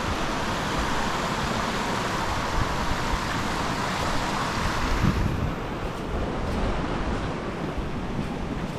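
Rushing river water, a steady hiss that drops away sharply in its higher part about five seconds in, with wind buffeting the microphone.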